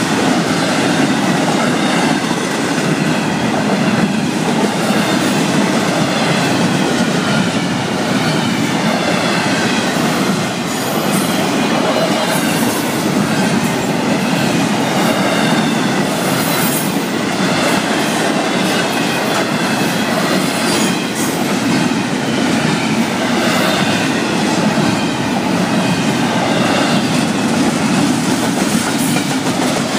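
Florida East Coast Railway freight train rolling past close by, a steady loud rumble of cars with wheels clacking over the rail joints and a wavering high-pitched wheel squeal on and off.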